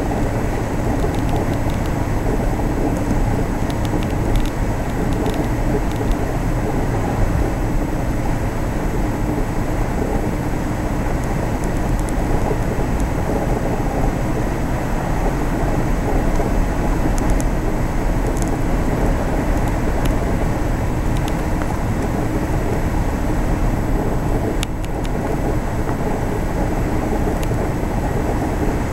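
Four-wheel-drive vehicle driving along a sand beach, heard from inside the cab: a steady, low rumble of engine and tyres on sand.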